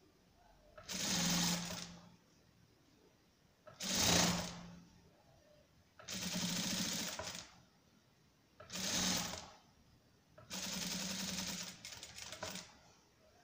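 Electric sewing machine stitching in five short bursts of about one to two seconds each, with pauses between, as bias binding is sewn along the edge of a cloth napkin.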